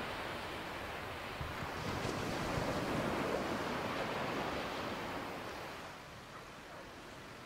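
Sea waves breaking and washing onto the beach, an even rushing surf that swells a couple of seconds in and fades toward the end.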